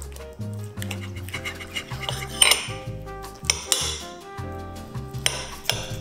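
Steel knife and fork cutting through baked chicken breast with melted cheese, the blade scraping and clinking on a porcelain plate several times, loudest about two and a half seconds in. Soft background music plays underneath.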